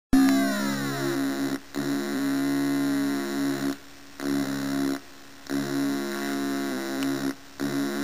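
Synthesized computer sound effects from a program graphing the Riemann-Siegel Z function: buzzy electronic tones that shift in pitch in steps and cut out briefly four times.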